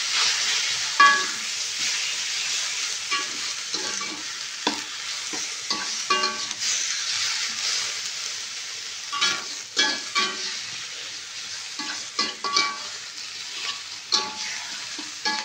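Pork pieces sizzling in hot oil in an aluminium wok while a metal spatula stirs and turns them. The spatula scrapes the pan and strikes it again and again with short ringing clanks over the steady sizzle.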